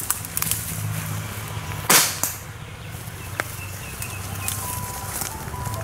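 A dart gun fired once about two seconds in, a single sharp crack with a short tail, shooting a medicated dart into an injured wild elephant calf to give it antibiotics.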